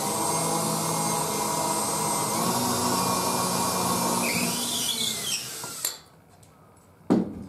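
Cordless drill running steadily as it bores a hole into a wooden block, with a short rising whine partway through; it stops suddenly about six seconds in. A sharp knock follows near the end.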